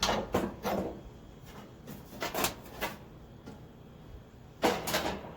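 Scraping and rubbing of grill parts being handled and fitted together during assembly, in several short bursts with quieter gaps between.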